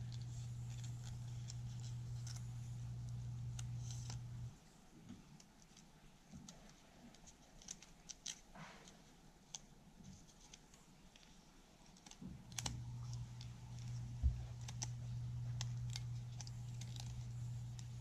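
Faint light clicks and rustles of small plastic parts and a thin sheet being handled and fitted together, over a low steady hum that drops out for several seconds in the middle.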